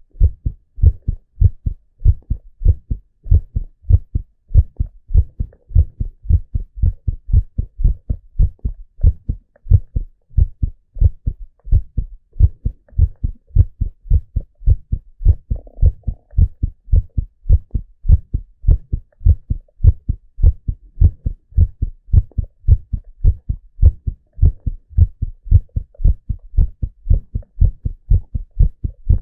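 A man's heartbeat heard close up: steady, regular low thumps.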